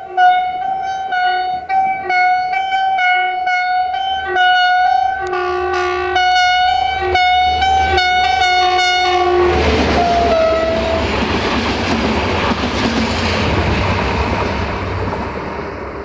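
Diesel locomotive's air horn played in a fast rhythmic run of short toots with a few longer blasts, a 'horns show' by the driver. About ten seconds in the tooting stops with one last blast that drops in pitch as the locomotive goes by, and the train passes with a loud rush of engine and wheel noise that fades near the end.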